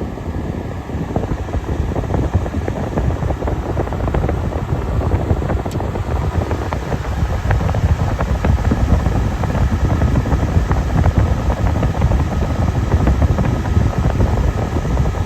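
Fedders A2Q10F2BG 10,000 BTU window air conditioner running at full cooling, its fan blowing a strong stream of cold air that buffets close to the microphone.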